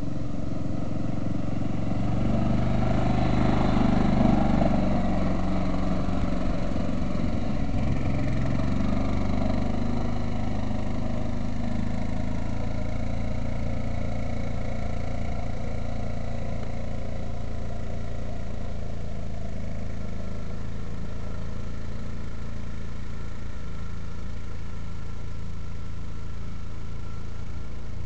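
Kawasaki Mule utility vehicle's engine running as it drives across grass, loudest a few seconds in, then fading as it climbs away up a slope, over a steady low rumble.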